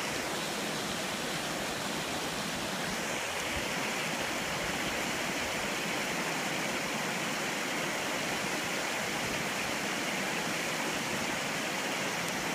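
Floodwater runoff rushing steadily over a roadway, a continuous even rush of water.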